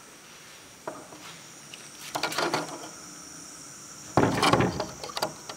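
Steady high chirring of night insects, with scattered light knocks and a louder scuffing thud about four seconds in.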